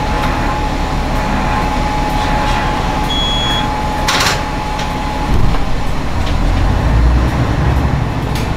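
Train at a stop: a short beep just after three seconds and a brief hiss of air as the sliding doors close, then a low diesel engine rumble builds as the Ise Railway railcar moves off.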